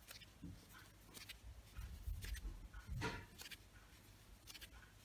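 Faint scratchy ticks and rustles of a crochet hook pulling yarn through single crochet stitches, one a little louder about three seconds in.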